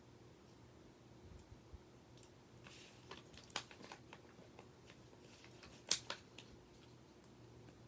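Quiet handling noises of small objects: a light rustle and a scatter of small sharp clicks and taps. The loudest click comes about six seconds in, over a faint steady hum.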